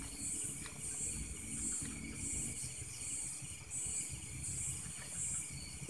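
Crickets and other night insects chirping in a steady chorus: a high pulsed call repeating about twice a second over a continuous high trill.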